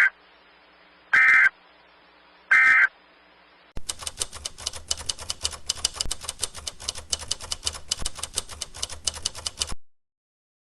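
EAS SAME end-of-message data bursts: the tail of one short buzzy warbling burst and then two more, about a second apart. Starting about four seconds in, rapid typewriter-like clicking runs for about six seconds and then cuts off.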